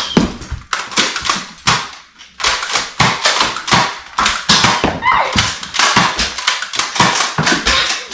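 Nerf blasters firing foam darts during a play fight: an irregular run of sharp pops and taps. The pops are sparse at first and come thick and fast from about two seconds in.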